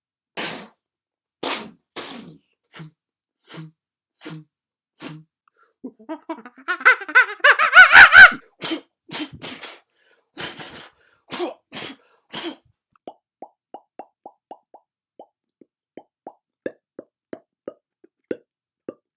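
Mouth-made sound effects: a series of sharp pops and clicks, with a louder, denser burst of vocal noise about seven to eight seconds in. After that comes a run of lighter, quieter clicks at about two a second.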